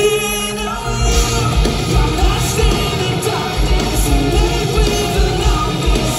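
Live rock band playing loud, heard from the crowd: a singer over electric guitars, bass guitar and drum kit. The drums and bass come in hard about a second in, with a steady kick-drum beat after that.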